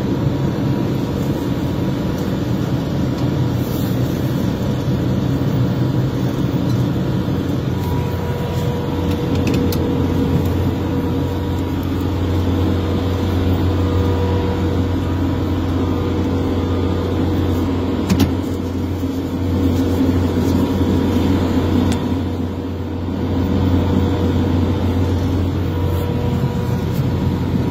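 Victory Sweepers Mark III sweeper truck running steadily while driving and sweeping, heard from inside the cab: a low engine drone with a steady whine over it. A single sharp click about two-thirds of the way through.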